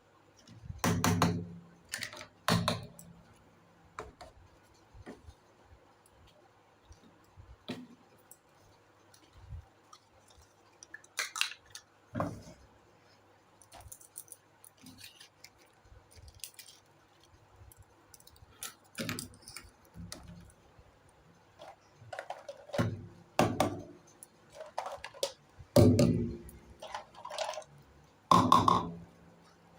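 Small plastic toy kitchen pieces being handled and set down: scattered taps, clicks and light clatters. The loudest knocks come in clusters about a second in and again near the end.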